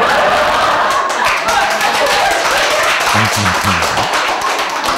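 A classroom of students clapping their hands together in quick, dense applause.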